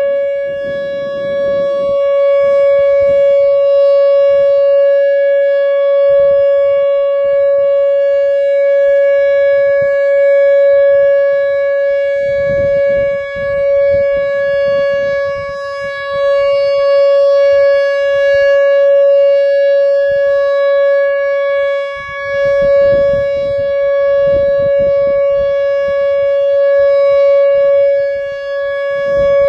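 Whelen WPS-2910 electronic speaker siren sounding its steady single-tone Alert signal: one loud, unwavering tone with overtones, with no rise or fall in pitch. Low rumbling gusts come and go beneath it.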